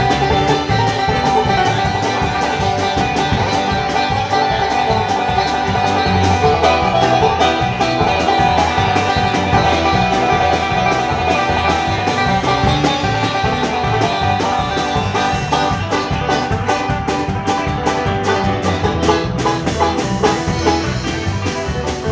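Live band music in a bluegrass-country style: a banjo picking the lead over electric bass guitar, playing steadily throughout.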